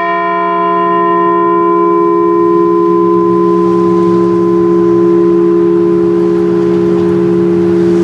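Large cast bell, a Liberty Bell replica, ringing on after a single strike: a memorial toll. Its higher overtones die away over the first few seconds while the deep hum and a strong middle tone ring on steadily.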